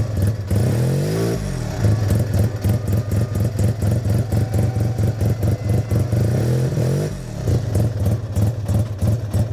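Suzuki RE5's single-rotor Wankel engine running at a steady idle, blipped up and back down about a second in and again near the end.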